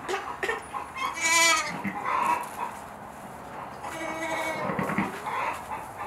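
Katahdin sheep bleating, a ewe with her newborn lambs: two loud, wavering bleats, about a second in and about four seconds in, with softer calls between.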